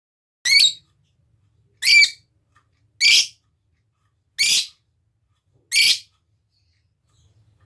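A lovebird giving five short, shrill calls, evenly spaced about a second and a half apart.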